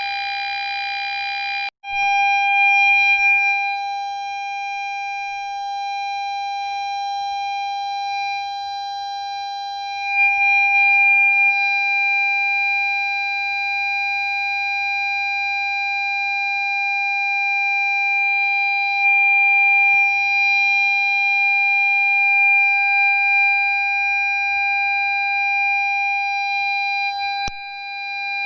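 Ford Fiesta parking sensor sounding one continuous steady tone, the signal that an obstacle is very close. It breaks off for a moment about two seconds in, then holds on without pause.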